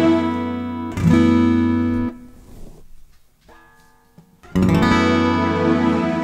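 Steel-string acoustic guitar strummed, a chord ringing and a second chord struck about a second in. The strings are damped about two seconds in, a few soft single notes are picked, and a full chord is strummed again near the end and left ringing.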